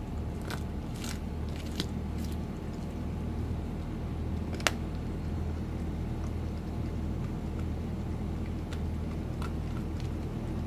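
Golden retriever gnawing a raw veal neck: scattered crunches and cracks of bone and meat, with one sharp crack about halfway through, over a steady low hum.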